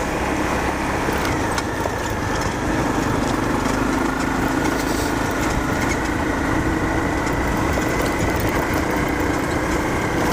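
Honda CRF250L's single-cylinder four-stroke engine running steadily, its pitch holding nearly constant with only a slight change a couple of seconds in.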